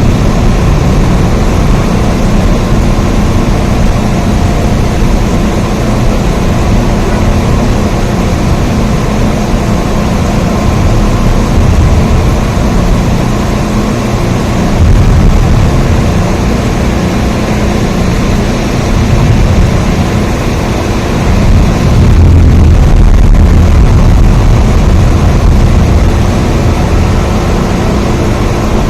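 Steady, dense rain noise with a deep rumble in the low end, swelling slightly about two-thirds of the way through.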